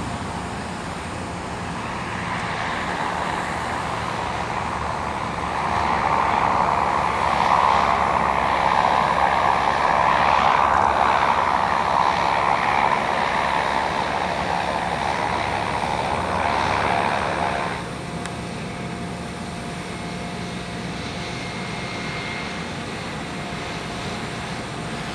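Cessna 208B Caravan's single Pratt & Whitney PT6A turboprop and propeller running as the plane rolls out after landing. The sound swells as the plane passes, then drops abruptly about 18 seconds in to a lower steady whine.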